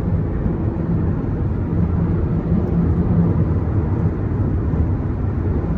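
Steady low rumble of wind and road noise inside a 2024 Kia Telluride at freeway speed in strong gusty wind, with a faint wavering hum from the roof rack catching the wind, strongest about two to three seconds in.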